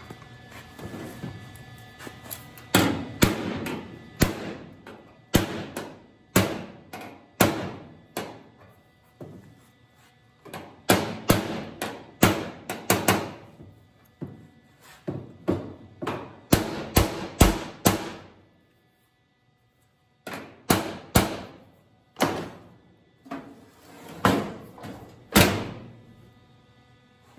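A steel hammer striking sheet steel, tapping the new quarter panel's edge flush at the seam so it can be tacked. Sharp metallic blows come in irregular runs of one or two a second, each ringing briefly off the panel, and they stop for a couple of seconds partway through.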